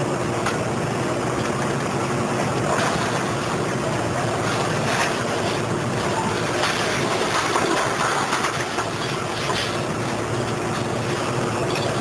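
Diesel engine and hydraulics of a Liebherr 904 material handler running steadily as its orange-peel grapple works scrap metal, with scattered knocks and clatter of scrap metal as the grapple bites into the load and lifts it.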